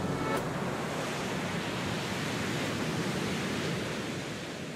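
The last notes of the music stop with a click just after the start, leaving a steady rushing noise like surf that fades out near the end.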